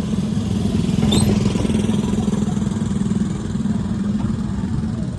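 Electric ride car driving along the track: a steady low hum over rumble. A brief high, rising squeak about a second in.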